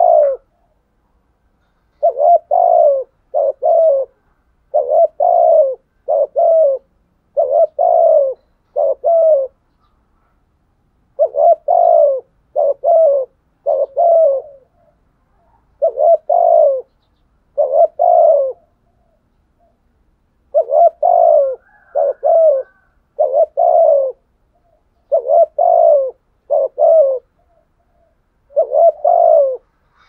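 Spotted dove calling, a loud cooing phrase of two to four low notes repeated about every two to three seconds. This is the insistent territorial call of a male decoy dove.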